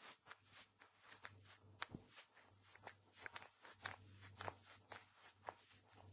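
Domestic cat licking a human finger: its rough tongue makes quiet, irregular rasping clicks, about three or four licks a second.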